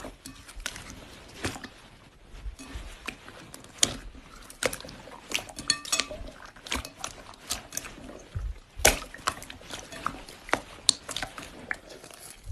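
Slime being squeezed and poked by hand, giving a run of sharp, irregular pops and clicks as air pockets burst, a few every second.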